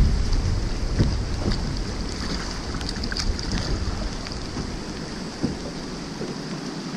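Wind buffeting the microphone of a camera on a drift boat's bow, over river water rushing along the hull, with scattered small ticks of water drops. The wind rumble eases about five seconds in.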